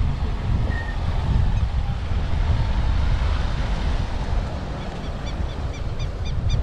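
Game-drive vehicle driving slowly along a dirt track, a steady low rumble with wind buffeting the microphone. About five seconds in, a quick run of high, short twittering calls starts, about three a second.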